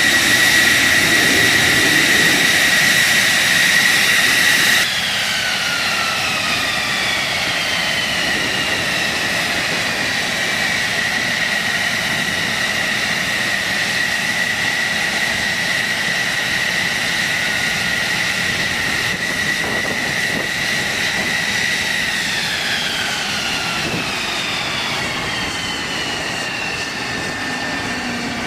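Fighter jet engine with a steady high whine. After a sudden change about five seconds in, the whine falls in pitch, and it falls again from about two-thirds of the way through.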